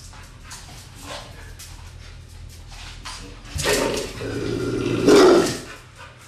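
American bulldog barking at animals on a television, one loud drawn-out bark about three and a half seconds in that swells to its loudest a second and a half later before dying away.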